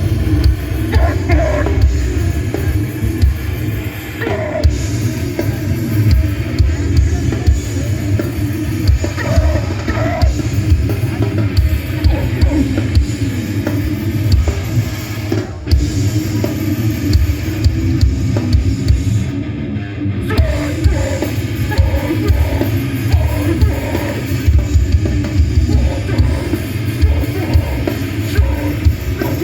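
A metallic hardcore band playing live at full volume: heavy, fast drumming under a dense low-end wall of distorted guitar and bass. It is recorded on a phone held up in the crowd.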